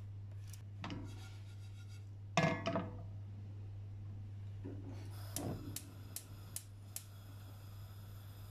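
A frying pan holding a layer of sugar is shaken and slid on a gas stove's metal grate, scraping and knocking, loudest a little over two seconds in. Then come five sharp clicks, about two a second.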